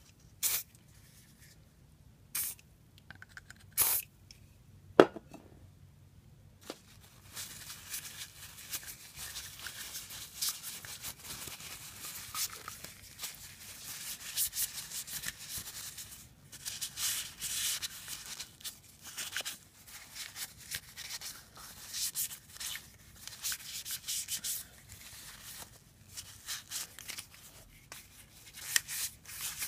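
A few short hisses of aerosol lubricant sprayed onto a spinning reel's bail arm, with a sharp click about five seconds in. Then a cloth rubs over the reel's plastic rotor, a continuous scratchy rubbing that swells and fades as the hand works.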